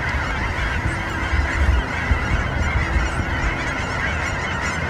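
A huge flock of cackling geese calling all at once overhead: a dense, steady din of many overlapping high cackles and honks.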